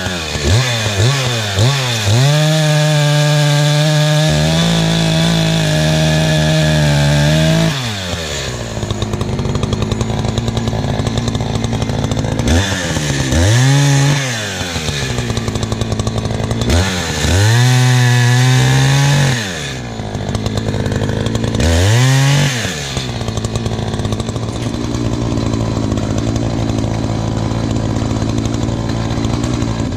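Two-stroke Echo chainsaw revving to full throttle and cutting through logs, with a long cut early on and then three shorter bursts, dropping back to a steady idle between them. Near the end it idles steadily.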